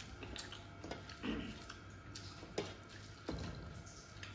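Wet eating sounds of rice and fish curry eaten by hand: a few short squishy smacks and clicks from chewing and the fingers working the food.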